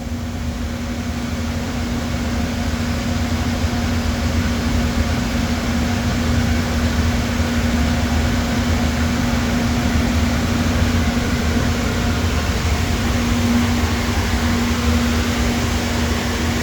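Shop machinery running with a steady drone, a low rumble under a constant hum.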